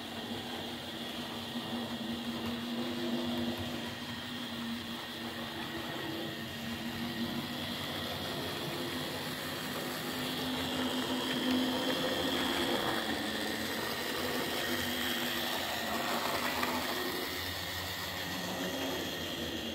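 Small electric motor of a model railway tank locomotive whirring steadily as it runs, its wheels and its coaches' wheels rumbling along the track. The locomotive has just been repaired and serviced.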